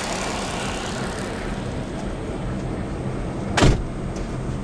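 Support van driving, with steady engine hum and road noise and one sharp thump a little past the halfway point.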